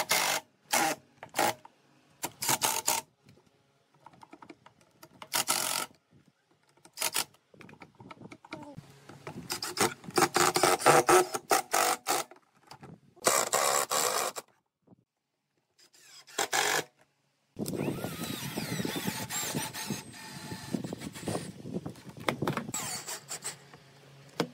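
Cordless drill-drivers driving screws into pine: a string of short trigger bursts of motor whine, a longer run of about three seconds near the middle, and a long, steadier run over the last seven seconds.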